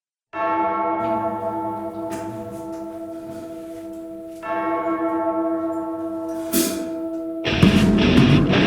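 A bell tolls twice, about four seconds apart, each stroke ringing on and slowly fading. Near the end, loud heavy rock music with guitar comes in.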